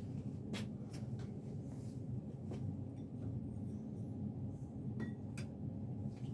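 Homestead Universal ceiling fan running on low speed in reverse: a steady low hum, with a few light clicks and taps scattered through it.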